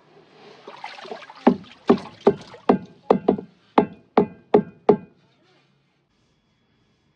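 About eleven sharp knocks in quick succession, roughly three a second, some with a brief ring, after a short stretch of shuffling noise.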